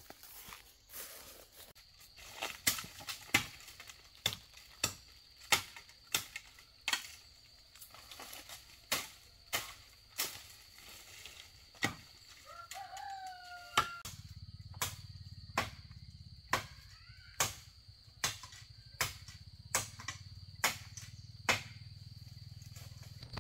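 Steady, evenly spaced blows of a hand tool striking wood, about three every two seconds. A chicken calls once about halfway through, over a constant high insect buzz.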